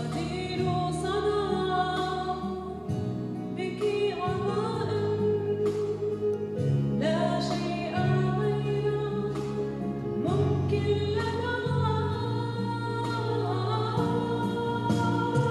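Mixed choir and a woman soloist singing a Christmas song, with instrumental accompaniment that includes a sustained bass line changing note every second or two.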